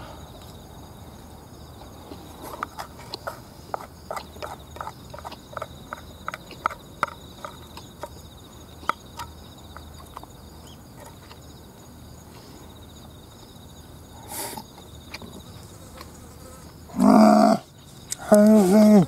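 Wooden chopsticks clicking and scraping in an open metal ration can, a run of sharp ticks lasting several seconds, with insects trilling steadily behind. Near the end come two short, loud vocal sounds from the eater, about a second apart.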